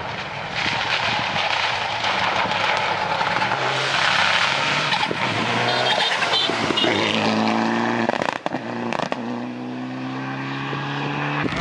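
Mitsubishi Lancer Evolution rally car with a turbocharged four-cylinder engine, driven hard at racing speed on a wet road, its tyres hissing through standing water. In the second half the engine note comes through more clearly, gliding up and down with the revs.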